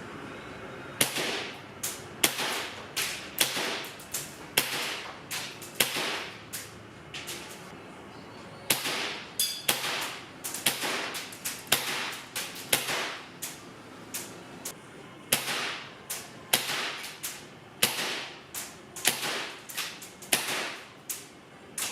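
Airsoft gun shots: a long series of sharp cracks with short echoing tails, in irregular strings with brief pauses between them.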